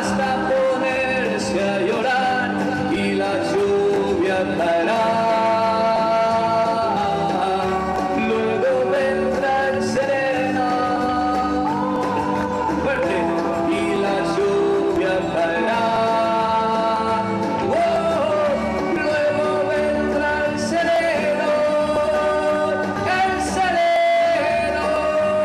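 A man singing a slow ballad into a handheld microphone through a PA, with long held notes that waver, over instrumental backing music.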